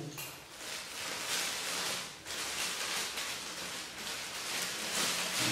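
Clear plastic film crinkling and rustling as hands pull at the wrapping, a continuous crackle that dips briefly about two seconds in.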